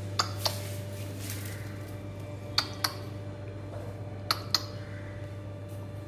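Three pairs of short, sharp clicks, the two in each pair about a quarter second apart, over a steady low hum.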